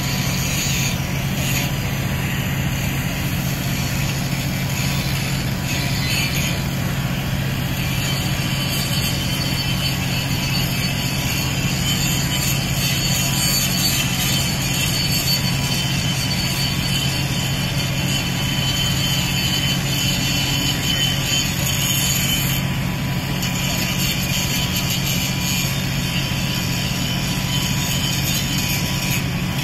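A docked ferry's diesel engines running steadily: an unbroken low drone from the exhaust funnel, with a fainter hiss over it.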